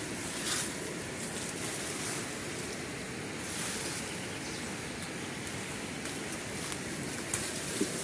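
Steady rushing outdoor noise, with a few faint rustles as a fruit-picking pole moves through the leafy branches of an abiu tree.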